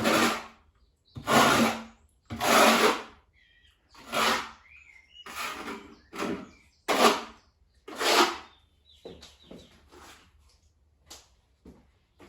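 Trowel scraping cement-based tile adhesive across the wall, buttering it in repeated strokes about once a second, with a few lighter strokes near the end.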